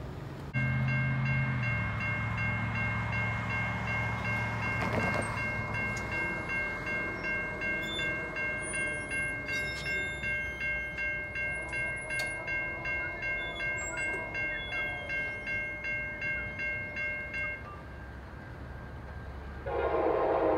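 Railroad grade-crossing bell ringing in quick, even pulses, about two a second, then stopping a couple of seconds before the end. Right at the end, a train's horn starts blowing.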